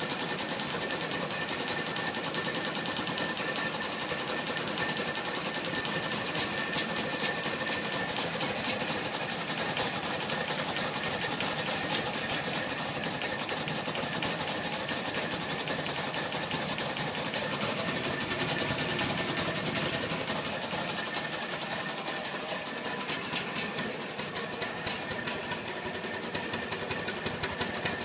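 Daihatsu Midget MP4 engine running steadily with a fast, even clatter. It eases off slightly near the end, then comes back with a few stronger pulses.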